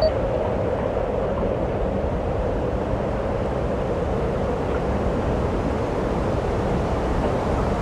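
Steady, even rushing noise with no beat, melody or distinct events: an ambient background track.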